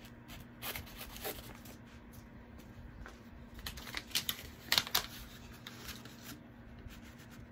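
Paper seed packet rustling and crinkling as it is handled and opened, with a couple of sharp clicks about five seconds in.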